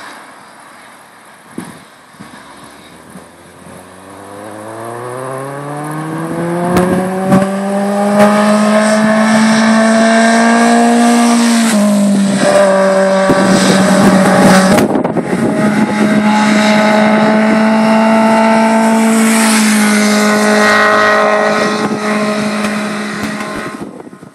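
Kawasaki Z750 inline-four motorcycle engine through an SC-Project short oval exhaust with the baffle removed. The bike approaches with revs climbing, drops in pitch sharply about halfway through at an upshift, passes loud, then holds a steady note before fading away at the end.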